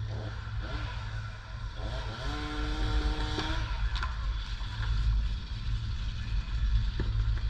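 Steady low rumble of wind buffeting the microphone. About two seconds in, a small engine revs up briefly and holds for about a second before dropping away.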